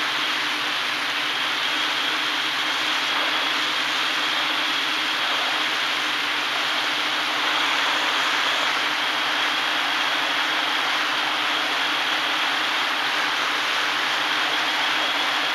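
Hexacopter's brushless motors and propellers running steadily in flight, heard from on the airframe: an even rushing hiss with a steady high whine.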